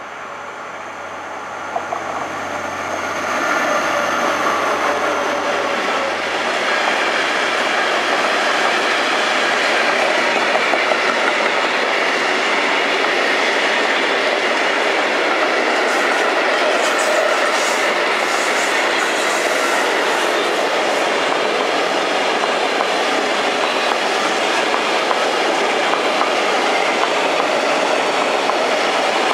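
Diesel freight locomotive approaching and passing close by, its engine hum growing louder over the first few seconds. A long train of container flat wagons then rolls past with a steady rumble and the clickety-clack of wheels on the rails.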